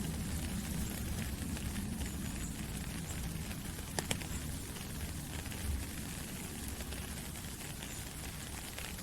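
Steady rain falling through forest trees, drops pattering on leaves over a low rumble, with a couple of sharper, louder drips about four seconds in.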